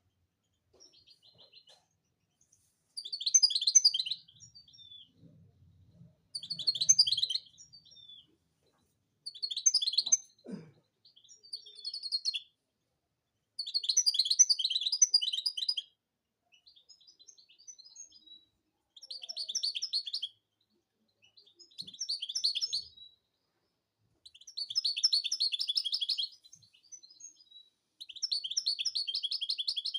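European goldfinch singing: bursts of rapid, trilled twittering song, each a second or two long and repeated every few seconds, with softer twitters between the phrases.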